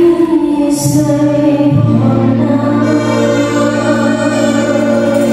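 Qasidah-style devotional music played on electronic keyboards, with long held chords. A low bass note comes in a little under two seconds in.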